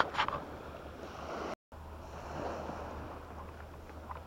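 Steady hiss of surf and wind on a beach, with one short sharp sound just after the start and the sound cutting out for a moment about one and a half seconds in.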